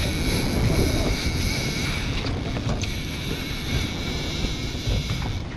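Wind buffeting the microphone, a steady rumbling rush, with a faint steady high tone underneath.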